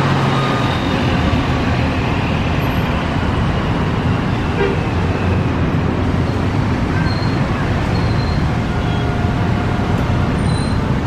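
Intercity coach's diesel engine running as the bus drives past and pulls away, over steady street traffic.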